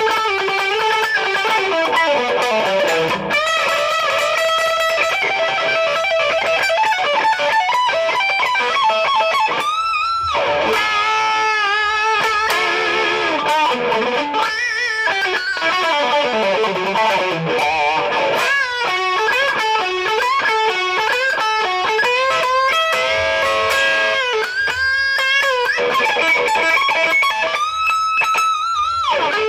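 1987 Kramer Pacer electric guitar playing an unaccompanied lead solo in E minor through a Marshall DSL-1 amp and Dirty Shirley overdrive. Fast single-note runs alternate with held notes that waver with vibrato and slide or bend in pitch.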